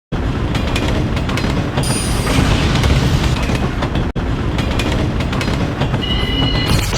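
Train running on rails, a loud continuous rumble and clatter that starts abruptly, with a momentary break about four seconds in.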